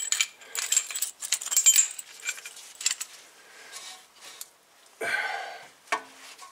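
Steel tool parts clinking and jingling together as a brake caliper piston wind-back tool is handled, most of it in the first three seconds. A short scrape follows about five seconds in.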